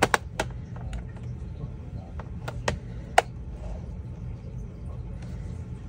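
Plastic latch clips of a Lenovo Legion laptop's bottom case snapping loose as a pry tool works along its edge: several sharp clicks in the first few seconds, the loudest about three seconds in, over a low steady hum.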